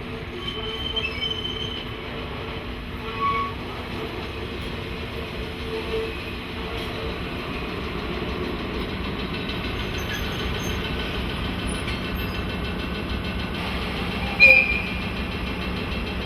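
JNR DE10 diesel-hydraulic locomotive moving on the line, its engine running steadily, with brief high wheel squeals; the loudest is a short squeal a couple of seconds before the end.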